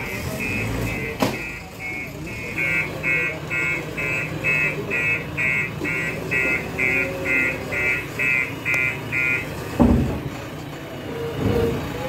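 JCB 3DX backhoe loader running, with an electronic warning alarm beeping about three times a second that stops about two-thirds through. A sharp knock comes about a second in, and a heavy thud, the loudest sound, comes near the end.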